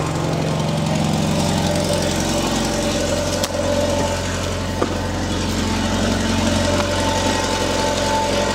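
Mercedes-Benz W210's engine idling steadily, heard mostly as exhaust sound, with the newly fitted fuel pump drowned out beneath it. There are a couple of brief knocks around the middle.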